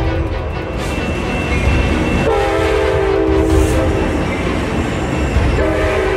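Train horn sounding a steady chord in two long blasts over the continuous low rumble of a moving train: one about two seconds in, another starting near the end.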